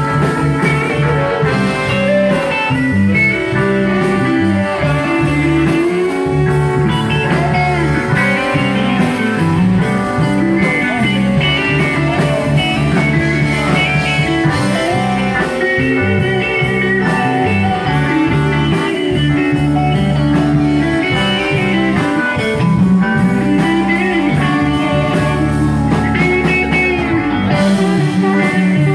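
Live band playing an instrumental passage of a slow blues-soul ballad, with electric guitar and saxophones and no vocal, at a steady, loud level.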